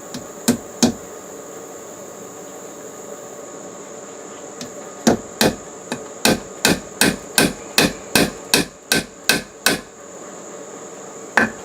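Metal hammer driving a 1.5-inch roofing nail into old wood: two taps about half a second in, then a run of about a dozen strikes at a steady two to three a second, and two more near the end.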